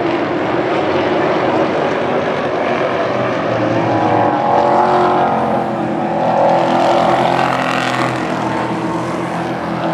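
Pro Truck racing trucks running hard around a paved oval, a pack of engines at racing speed. The engines swell twice in the middle as trucks pass close by, then ease off slightly.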